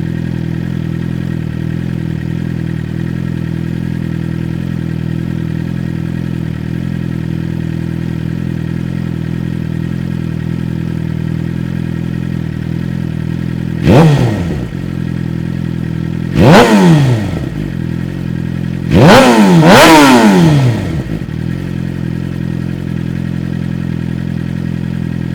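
2007 Suzuki GSX-R600 inline-four idling through a DanMoto Carbon GP Mk2 carbon slip-on exhaust. The throttle is blipped four times, once about halfway through, again shortly after and twice in quick succession near the end. Each rev rises sharply and drops back to idle.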